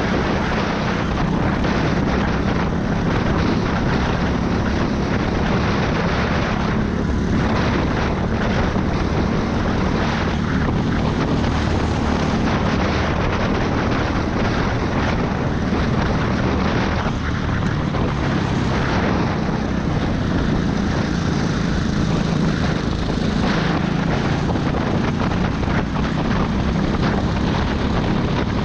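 Go-kart engine heard from the driver's seat, running continuously under load at racing speed with a steady low drone, mixed with a dense rushing noise.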